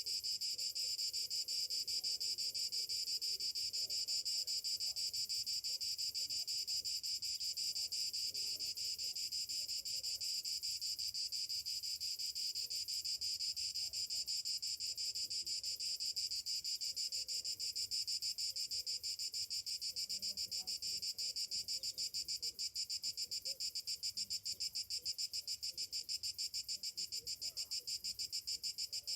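Summer cicadas in a continuous high-pitched chorus with a rapid pulsing rhythm that grows more distinct in the second half.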